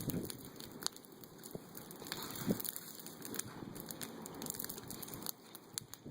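Bonfire of pruned tree branches burning, crackling with irregular sharp pops and snaps over a low rustle of flames.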